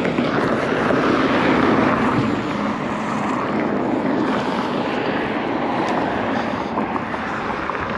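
Loud, steady rumble of a large passing vehicle, strongest in the first couple of seconds and easing a little toward the end, with a few light clicks near the end.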